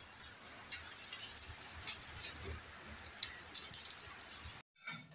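Faint, scattered light clicks and ticks, a few a second and irregular, that cut off suddenly near the end.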